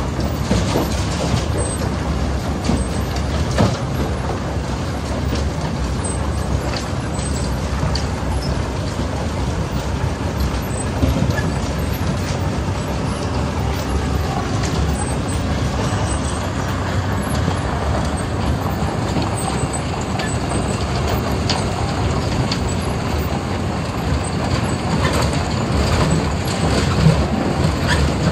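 Wirtgen W100CFi cold planer milling: the machine runs steadily while its drum grinds off the road's asphalt surface and its conveyor throws planings into a tipper truck. The noise is deep and dense, with scattered small clicks and rattles and one louder knock near the end.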